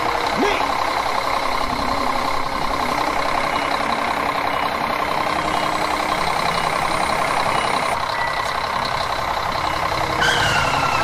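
Heavy truck engine running steadily, a dense mechanical rumble with a fast even pulse and a few steady whining tones.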